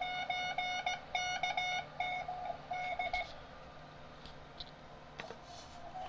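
Morse code (CW) signal from the Oak Hills Research OHR 100A receiver on 40 metres: a steady beep tone keyed on and off in dots and dashes. It stops about three seconds in, leaving faint receiver hiss, with a couple of soft clicks near the end.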